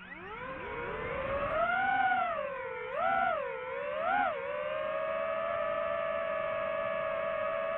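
DJI FPV drone's motors and propellers spinning up for takeoff in a rising whine. The pitch swells and dips twice as the throttle changes, then settles into a steady whine once it hovers.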